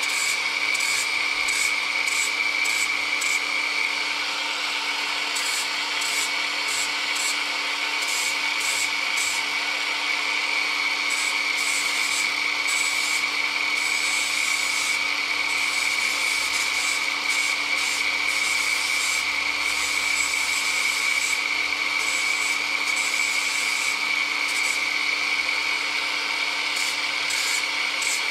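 Small handheld rotary grinding tool running steadily with a high whine, its bit grinding against a small workpiece, the repaired handbrake button being ground down smooth, with a continuous rasp.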